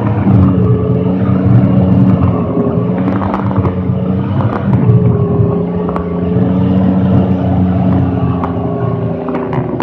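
M113A1 armoured vehicle running along, its Detroit Diesel 6V53 two-stroke diesel engine holding a steady drone, with scattered sharp clanks from the running gear.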